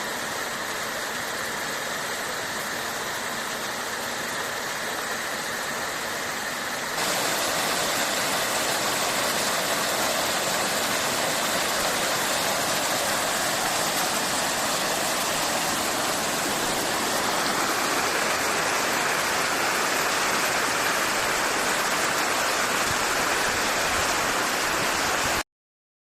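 Rushing water of the río Pudio's waterfall in spate, swollen by heavy rain: a steady roar of falling, churning water. It becomes louder and brighter about seven seconds in, then cuts off abruptly near the end.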